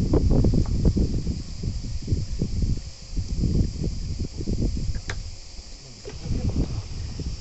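A steady high-pitched insect drone runs under irregular low rustling and bumping, which is the loudest sound, with one sharp click about five seconds in.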